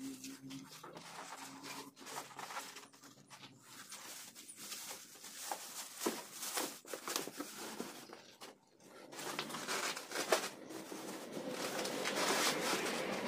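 Plastic packing wrap and a cardboard box being handled by hand, crinkling and rustling in irregular bursts. It pauses briefly about two-thirds through, then is louder and busier near the end.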